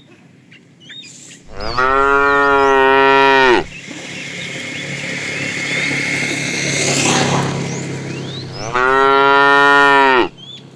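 A cow mooing twice, two long calls of about two seconds each, some five seconds apart. Between them a rushing noise swells and fades, and birds chirp faintly.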